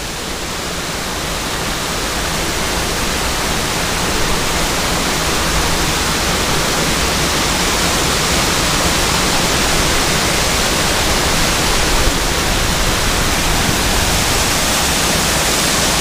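Steady rushing of a tiered waterfall cascading over boulders into a rocky pool, growing louder over the first few seconds and then holding steady.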